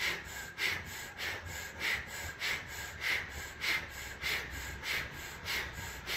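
A man's rapid diaphragmatic breathing in and out through the mouth with lips rounded in a small O, the mouth variation of breath of fire (pranayama). The breaths come in an even rhythm, a little under two a second.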